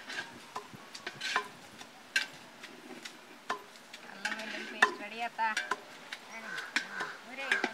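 Stirring and pounding at a cooking pot: a ladle working in a large metal pot while a wooden pestle pounds in a stone mortar, giving sharp knocks roughly once a second at an uneven pace.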